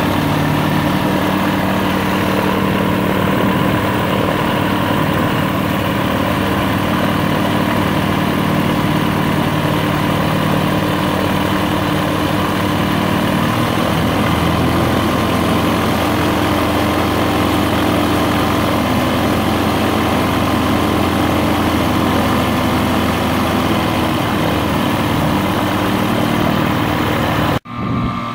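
Aerolite 103 ultralight's engine idling steadily with its pusher propeller turning, heard up close; the low tone shifts slightly about halfway through, and the sound drops away abruptly near the end.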